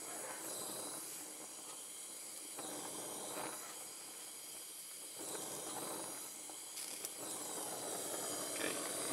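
Oxy-acetylene torch flame hissing steadily as it heats a steel hydraulic fitting for brass brazing, swelling and easing every couple of seconds as the torch is worked over the joint.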